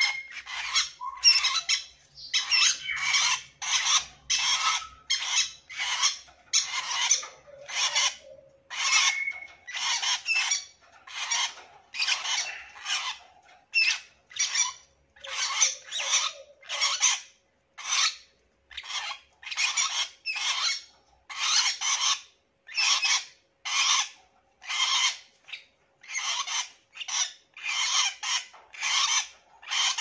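Pet lovebirds calling, a long run of short, harsh, high-pitched chirps in quick succession with brief gaps between them.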